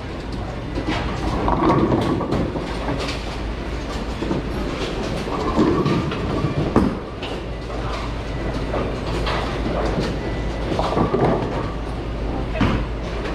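Bowling alley sounds: a bowling ball rolling down the wooden lane and hitting the pins, over a steady low rumble with scattered clatter and knocks of pins and balls.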